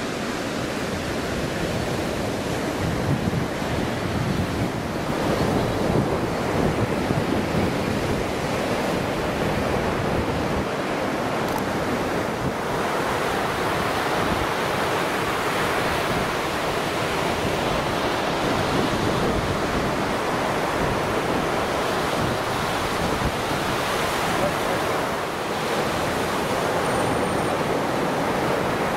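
Surf washing onto a sandy beach in a steady, unbroken rush, with wind buffeting the microphone.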